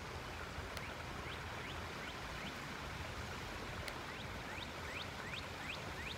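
A bird repeating short rising chirps, more often and louder toward the end, over a steady hiss of flowing creek water.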